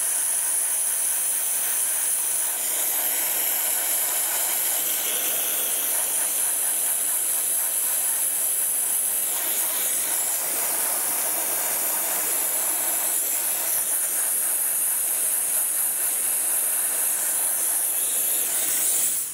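Dry ice blasting gun blasting adhesive off an alloy wheel rim: a steady, even hiss of compressed air and dry ice particles that cuts off suddenly near the end.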